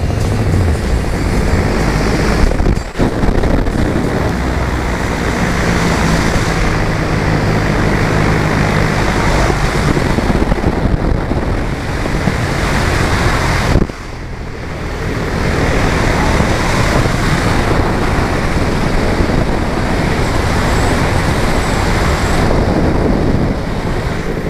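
Tornado 280 paramotor's two-stroke engine running steadily in flight, mixed with heavy wind noise on the microphone. The sound dips briefly about three seconds in and again near the middle.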